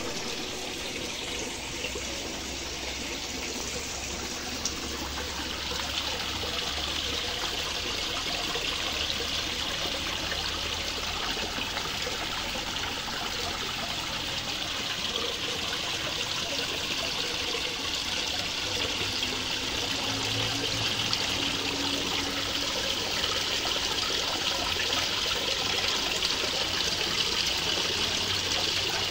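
Water from a small waterfall spilling in thin streams into a koi pond, a steady splashing trickle that grows a little louder over the first several seconds.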